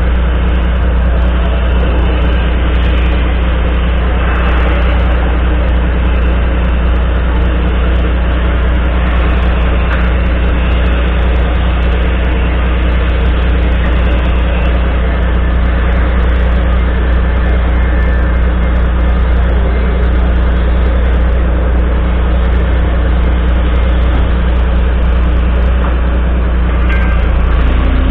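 Volvo FMX 440 truck's 13-litre six-cylinder diesel engine idling steadily while the truck stands still. It is heard close to the upright exhaust stack behind the cab.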